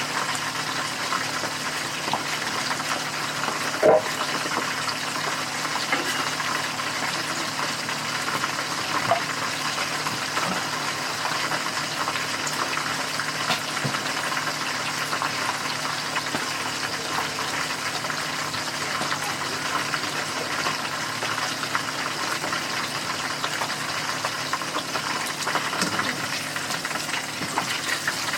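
Oil sizzling and crackling steadily in a frying pan over a low steady hum, with a short knock about four seconds in.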